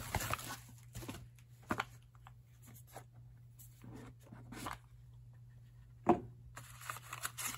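Quiet rustling, scraping and light tapping of a cardboard watch box and its padded mailer being handled, as the box is slid out of its sleeve and opened, with one louder knock about six seconds in.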